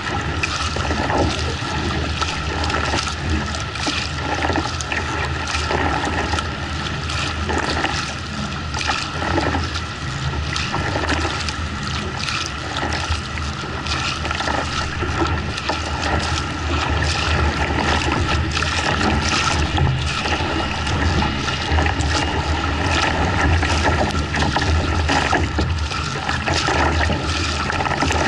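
Water rushing and splashing around a kayak hull as the paddler strokes through choppy waves, the paddle blades slapping in and out of the water irregularly, over a steady low rumble.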